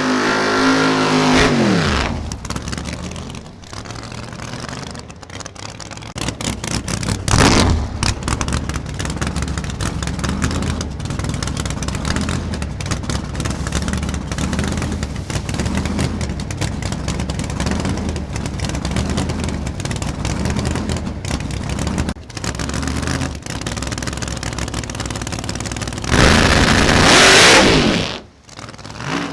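Drag race car engines at full power. A loud engine falls in pitch as a car goes by at the start, there is a sudden loud burst about seven seconds in, then a long stretch of steady engine noise with rapid crackle, and another loud car passes with falling pitch near the end.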